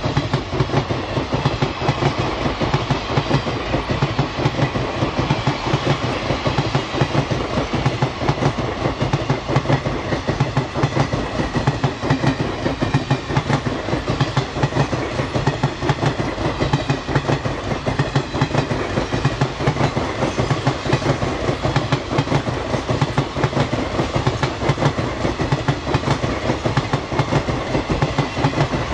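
A parcel train's vans and goods wagons rolling past at speed, their wheels clattering steadily over the rail joints with a low rumble underneath.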